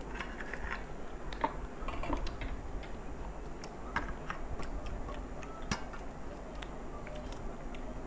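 Two people eating puffed rice (muri) mixed with ghugni by hand, close-miked: scattered crisp crunches and mouth clicks, with fingers scraping and picking food from steel plates. The louder clicks fall about a second and a half in, at four seconds and near six seconds.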